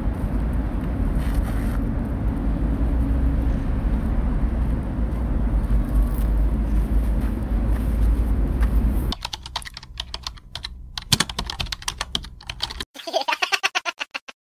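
Steady low outdoor city rumble for about nine seconds, then rapid computer-keyboard typing clicks take over, pausing briefly before starting again.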